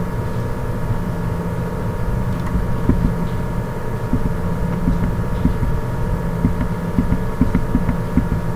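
A steady machine-like hum with a low rumble and a few faint steady tones above it.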